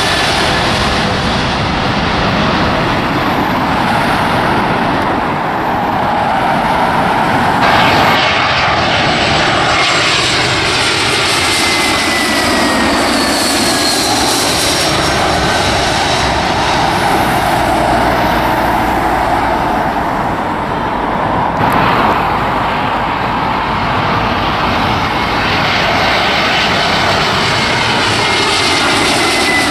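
Jet airliners passing low overhead on landing approach, first a Boeing 777 and then Airbus A320s. Their engines run as a steady loud rush with whining tones that slide down in pitch as each aircraft goes by. The sound changes abruptly about 8 and 22 seconds in.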